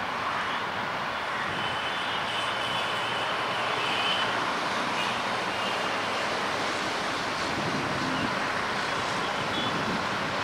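Diesel-electric locomotive of a Bangladesh Railway passenger train approaching from a distance, its engine running steadily under a constant rushing noise.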